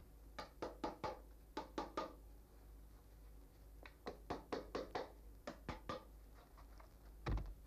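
Small hammer tapping nails into a wooden stretching board to fix a fox skin, light sharp taps in several quick runs.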